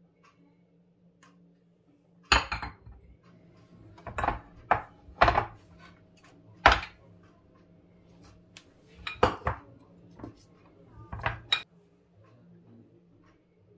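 Tableware being set down and moved on a wooden board: about a dozen sharp clinks and knocks of ceramic and a small metal cup, some in quick pairs.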